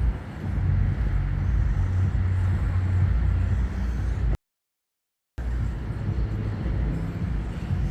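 A vehicle engine is running with a steady low rumble, heard as street sound. The sound drops out to dead silence for about a second midway, then comes back.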